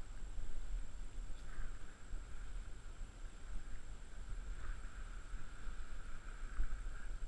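Steady, muffled rumble of wind and water against a head-mounted action camera, with small swells of splashing, as a wading angler plays a striped bass on a fly rod. A faint, steady high tone runs underneath.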